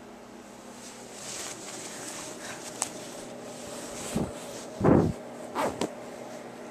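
Handling noise from a child's snowsuit being fastened around a cat: rustling, a single sharp click a little under three seconds in, then about four soft bumps between four and six seconds in.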